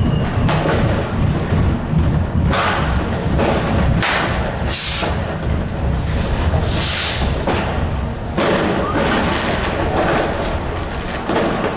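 New Year's Eve fireworks and firecrackers banging again and again, heard from inside a light-rail tram's driver's cab, with two longer hissing bursts about five and seven seconds in. The tram's running rumble sits underneath.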